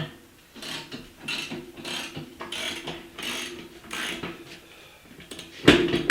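Hand ratchet worked in repeated rasping strokes, about one every half second or so, on the hold-down bolts of a 3/8-inch steel plate, with the plate ringing faintly underneath. A loud metallic knock comes near the end.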